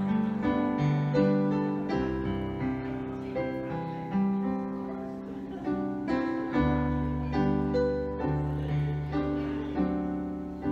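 Piano voice played on a Yamaha Motif keyboard: a slow passage of chords over bass notes, each struck note left to ring and fade.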